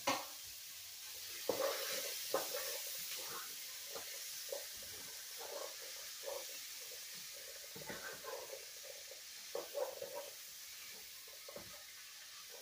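Spatula stirring black beans and corn in a soup pot, with irregular scrapes and clacks against the pot, over a steady sizzle from the pan on the hot stove. A sharp knock right at the start.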